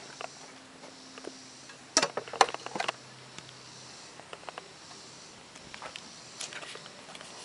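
Handling noise from a handheld camera being swung around: a quick cluster of sharp knocks and rubs about two seconds in, then only a few light ticks over a faint steady hum.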